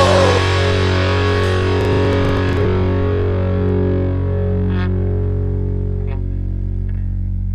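Rock music ending on one held, distorted electric guitar chord that rings on and slowly fades.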